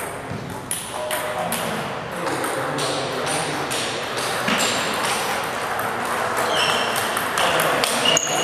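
Table tennis ball clicking sharply off rackets and the table in a rally, with more clicks from play at a neighbouring table.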